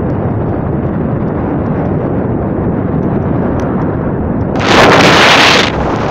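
Steady wind rumble on the microphone while moving along the roadside. About four and a half seconds in, a car passes close by, a loud rushing for about a second that then fades as it moves off.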